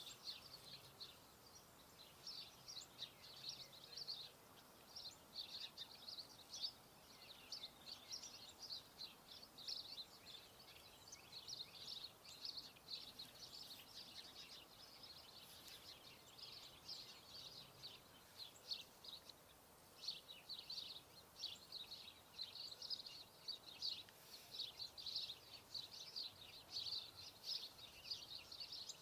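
Faint, continuous high-pitched chirping and twittering of small birds, many short notes overlapping, over a low background hiss.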